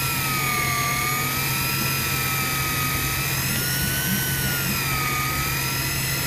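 Electric fishing reel motor whining steadily as it winds line in from a deep drop, its pitch slowly wavering up and down with the load, over a steady low hum.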